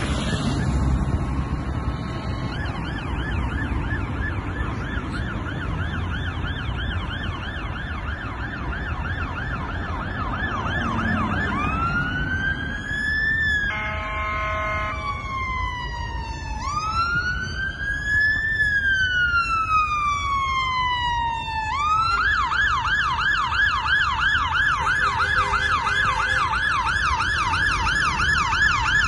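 Fire engine's siren responding through traffic. It runs a fast yelp, then rises into a slow wail, broken about fourteen seconds in by a short blast of its harsh buzzing bullhorn. The wail rises and falls twice, then the siren returns to a fast yelp about twenty-two seconds in, over a low rumble of engines.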